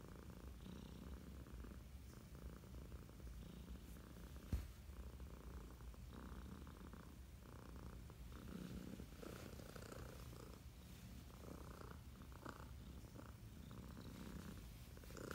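Domestic tabby cat purring faintly and steadily, with one short soft click about four and a half seconds in.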